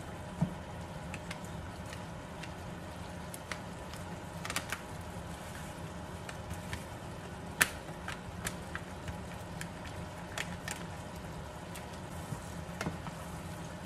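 A wooden spatula clicking and tapping against a metal frying pan of simmering curry, with the crinkle of a curry-powder packet, scattered sharp taps over a steady low hum; the loudest tap comes a little after halfway.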